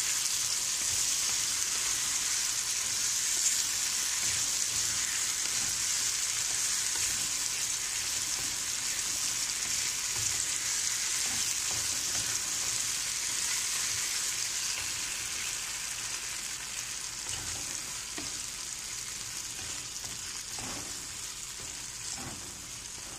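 Beans in tomato sauce sizzling in a frying pan, with the occasional soft scrape of a wooden spatula stirring them. The sizzle is steady and slowly dies down toward the end.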